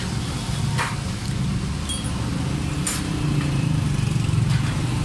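A motor vehicle engine running steadily in the background, a low droning rumble, with two light clicks about a second and three seconds in.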